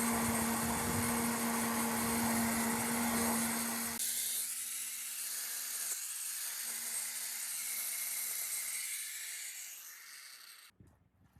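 Electric power tool running with a steady hum and hissing grind, loud for the first few seconds, then lighter. It cuts off abruptly shortly before the end.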